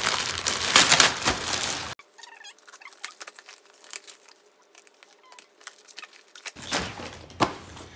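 Plastic mailer bag crinkling as it is torn open. About two seconds in the sound drops abruptly to faint rustling and clicks, then loud crinkling and ripping of a tape-wrapped parcel being pulled open near the end.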